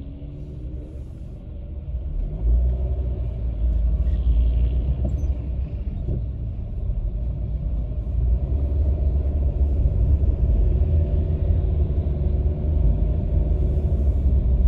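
Car engine and road rumble heard from inside the moving car, a steady low drone that gets louder about two and a half seconds in.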